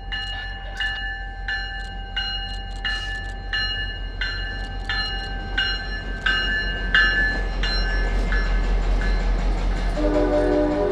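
Passing diesel passenger train led by an MBTA locomotive, its engine rumbling low, with the locomotive bell ringing about one and a half strokes a second. The bell dies away about eight seconds in, and a train horn sounds about a second before the end.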